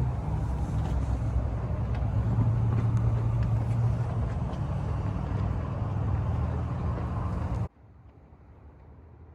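Steady low mechanical hum with a noisy rush over it, which cuts off suddenly near the end, leaving a much fainter hum.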